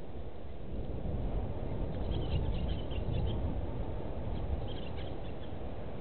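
Small birds chirping in short, high-pitched clusters, about two seconds in and again near five seconds, over a steady low rumbling background noise.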